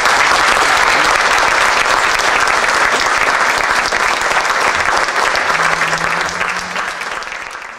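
Audience applause: dense clapping that starts all at once and fades gradually near the end.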